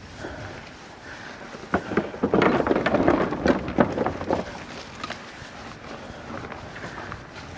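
Mountain bike riding over a rough trail: tyres crunching on dirt and rock, with the bike clattering over bumps in a burst of sharp knocks for a couple of seconds in the middle, over steady wind noise.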